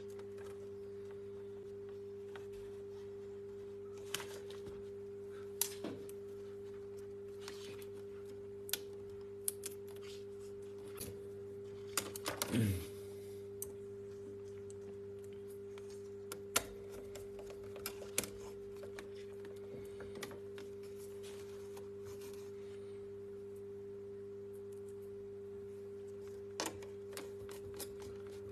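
Scattered light clicks and taps of a laptop screen hinge and plastic lid shell being handled and fitted together, with a short cluster of louder clicks about twelve seconds in, over a steady low hum.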